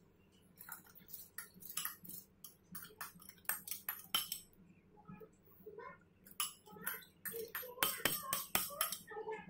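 A spoon scraping soaked rice out of a glass bowl into a pot of water: a run of quick clinks and scrapes against the bowl and pot, growing busier about halfway through.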